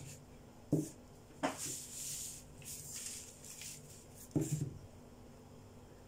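Handling noise from hands working a lump of cold porcelain clay and reaching into a bowl of cornstarch: three soft knocks, with rustling between the second and the third.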